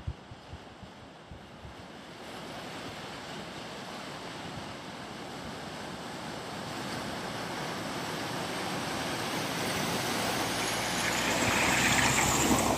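A Mercedes car ploughing through deep floodwater on a road, its tyres throwing up spray: a rush of splashing water that grows louder as the car comes closer and is loudest near the end, then cuts off suddenly. A few brief low wind thumps on the microphone at the start.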